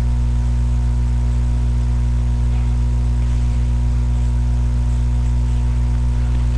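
Loud, steady electrical hum with a buzzy edge and faint hiss, unchanging throughout.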